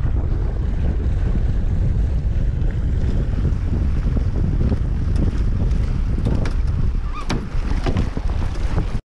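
Wind buffeting the microphone over the rush of water along a sailing catamaran's hull, a steady rough noise heaviest in the lows, with a few sharper splashes of spray in the second half.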